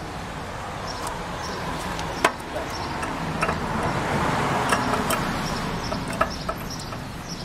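A few sharp clicks and taps, spaced a second or so apart, as the brass chemical-injector fitting on a pressure washer's pump is unscrewed by hand. Behind them is a steady background rush that swells in the middle.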